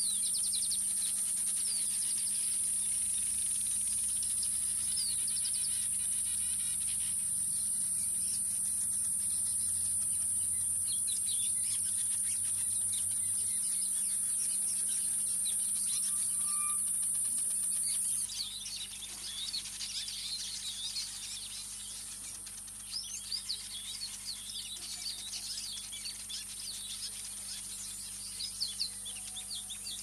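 A Speke's weaver colony chattering: many quick, short chirps and twitters from several birds, busier in the last third. A steady high-pitched drone runs underneath and grows fainter at the same point.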